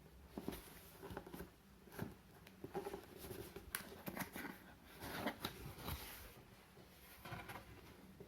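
Faint handling of a cardboard box and its packing: scattered rustles, scrapes and light knocks, several clustered between about three and six seconds in.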